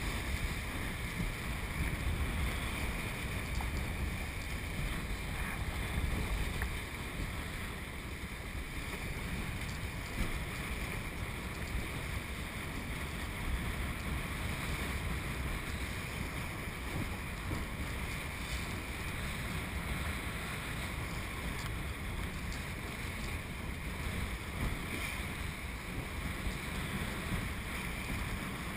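Water rushing and splashing along the hull of a small kite-drawn boat moving through choppy sea, with wind buffeting the microphone as a steady low rumble.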